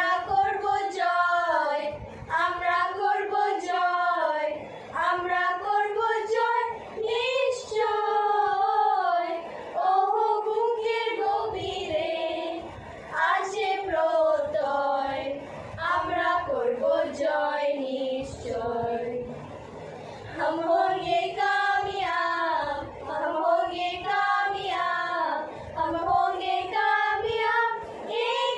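Four girls singing a song together without instruments, in phrases a few seconds long with brief breaths between them.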